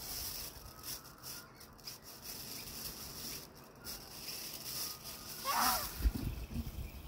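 Outdoor ambience: a low wind rumble and a steady high hiss, with a few faint short calls and one brief wavering call about five and a half seconds in.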